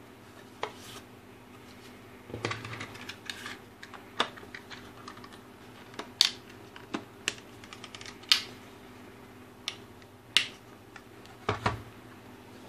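Hard plastic case of an Ltl Acorn 5210 trail camera being handled and fitted back together by hand: a string of irregular sharp clicks and taps, with a short rustle of handling about two and a half seconds in.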